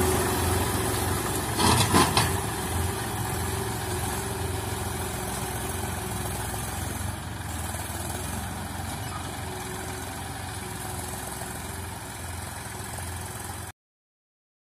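Tractor's diesel engine running steadily as it pulls a seed drill across the field, easing off slightly as it moves away. A few loud knocks come about two seconds in, and the sound cuts off suddenly near the end.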